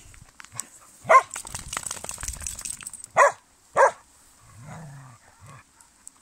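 Dogs at play barking: three short sharp barks, one about a second in and two in quick succession about three seconds in.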